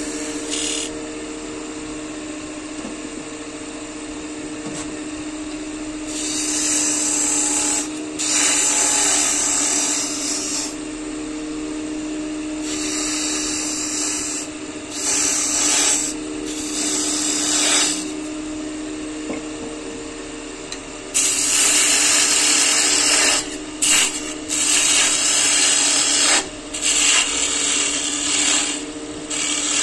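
Wood lathe running with a steady hum while a turning tool cuts the spinning wood in repeated bursts of a few seconds each. The cuts come closer together in the last third.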